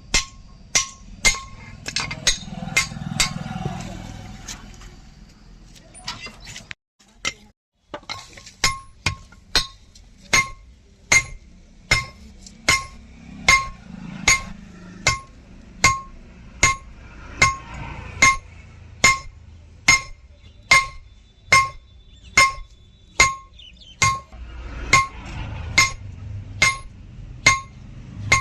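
Hammer blows on steel at an anvil during hand forging, evenly spaced at a little under two a second, each with a short metallic ring. There is a brief break about seven seconds in.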